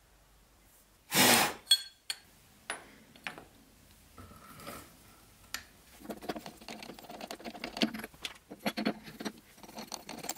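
Steel tooling being handled at a milling machine spindle. About a second in there is a short loud rushing noise, then a few ringing metallic clinks, then a string of irregular small clatters and knocks as the cutter holder is taken off and a drill chuck is fitted.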